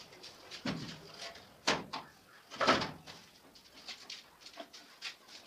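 Scattered clicks, knocks and short scrapes of hands and tools working on a distribution board fitted with miniature circuit breakers; the loudest is a short, rough scrape or knock a little under three seconds in, just after a sharp click.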